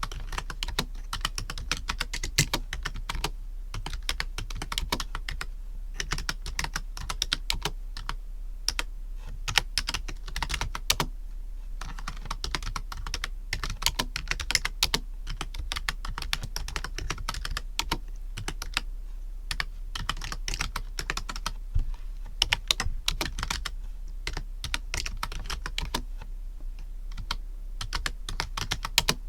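Typing on a computer keyboard: a fast, irregular run of key clicks with short pauses, over a steady low hum of background noise.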